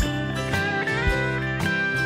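Background music: a guitar tune with sliding notes over a steady beat of about two hits a second.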